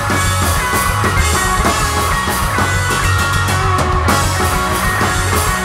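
Punk rock band playing an instrumental passage: electric guitar holding notes over a drum kit and bass, with no singing.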